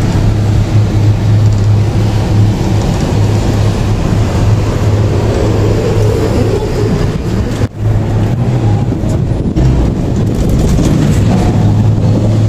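Steady hum and rumble inside a moving Ngong Ping 360 gondola cabin as it runs along the cable, with a strong low drone throughout and a brief dip about eight seconds in.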